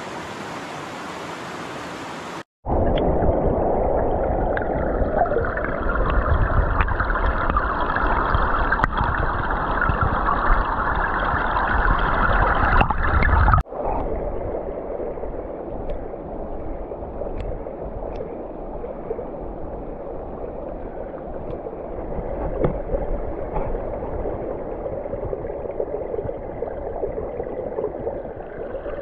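Shallow gravel creek flowing over stones. For the first couple of seconds it is a bright, even rush of water in the open air. It then cuts to the duller, deeper gurgling and rushing of the current as heard with the camera held underwater.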